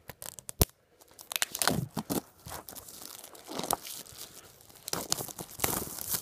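Clear plastic shrink-wrap being torn and peeled off a phone box, crinkling and crackling in irregular bursts, with one sharp snap about half a second in.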